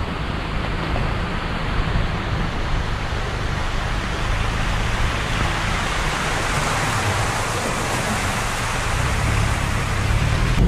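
Car driving slowly on a wet dirt road: a low engine hum under a steady hiss of tyres on gravel and water. The hiss swells in the middle, and the engine grows louder near the end.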